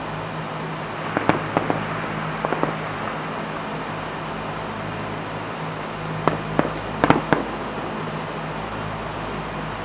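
Aerial fireworks display going off: clusters of sharp bangs, a few about a second in, a couple more shortly after, and a tighter volley of several near the end. They sit over a steady low hum and hiss.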